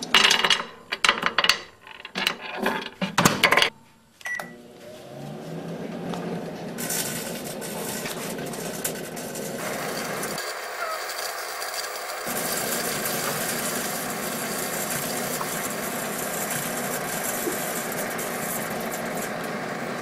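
Batteries clattering as they are tossed into a microwave oven and the door shut, then a short beep and the oven starting up with a rising hum. It then runs with a steady hum, with a harsher hiss joining a few seconds later while the batteries spark inside; the low hum drops out briefly about halfway.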